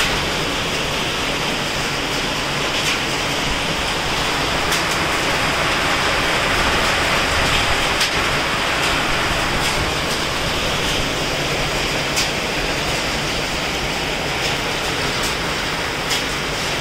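Steady hiss of heavy rain mixed with hail, with scattered sharp clicks of hailstones striking nearby surfaces.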